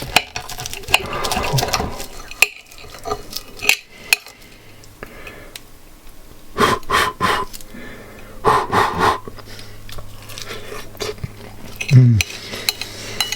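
Metal cutlery clinking and scraping on a plate while a puff-pastry pie is cut and eaten, with a few short sharp clicks. Brief voice sounds come in here and there, one falling in pitch near the end.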